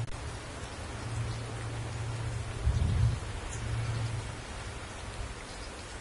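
Steady rain falling, an even hiss of many drops, over a low rumble that swells and fades and is loudest about three seconds in.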